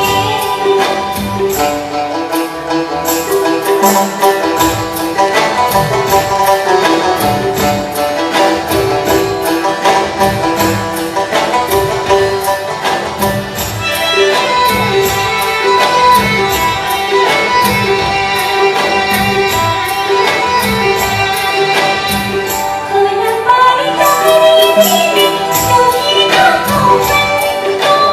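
A live Nepali film-song ensemble playing, with bowed violins carrying the melody over a steady hand-drum beat.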